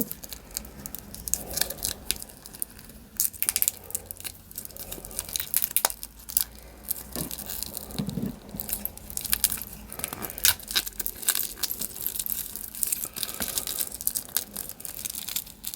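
Protective wrapping being picked at and torn open by hand: irregular crinkling and tearing with small sharp crackles.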